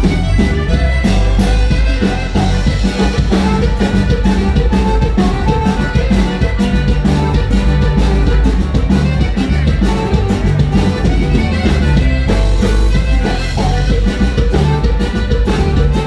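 Norteño band with saxophone playing a huapango live, with drum kit and bass under the melody.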